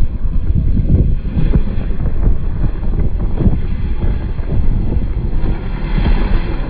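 A second-generation Toyota MR2 drifting past on a snowy road, its engine running under heavy, gusty wind buffeting on the microphone.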